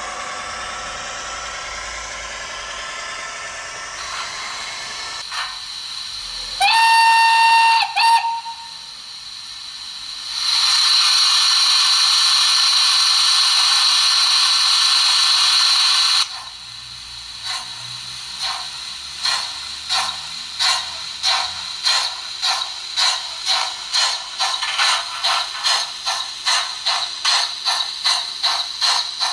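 Model steam locomotive's sound system: a steady running hum, then one whistle blast that rises in pitch and holds for about a second and a half. Next comes a loud steady hiss of steam for about six seconds, then exhaust chuffs that start slowly and quicken as the locomotive pulls away.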